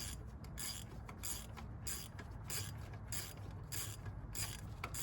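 Hand ratchet wrench turning a bolt with quick back-and-forth strokes, its pawl clicking in a steady rhythm of about three strokes a second.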